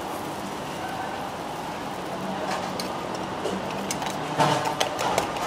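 Steady street traffic hum, then near the end a quick run of sharp metallic clinks as a fork knocks against a small steel cup.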